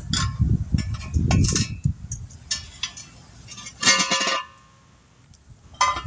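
Pliers working old wheel weights off steel wheel rims: scraping clicks and metallic clinks, with a louder ringing clink about four seconds in.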